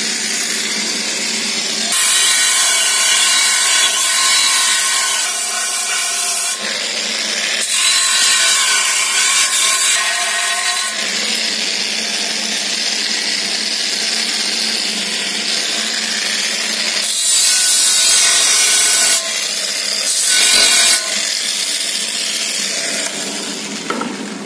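Angle grinder with a coarse flap disc grinding a TIG weld bead flush on a cast-aluminium wheel rim. The motor runs steadily, with louder grinding in several stretches as the disc is pressed to the metal.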